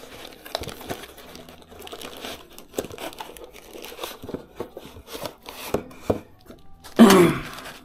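Cardboard box and plastic packaging being handled while a network switch is taken out: irregular rustling, crinkling and light knocks, with a brief louder noise about seven seconds in.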